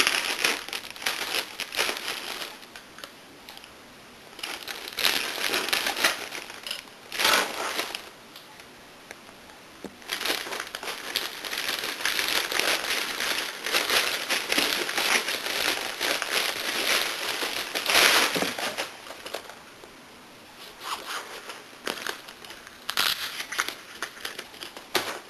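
A packaging bag being cut and pulled open, crinkling and rustling in bursts with short pauses between handlings.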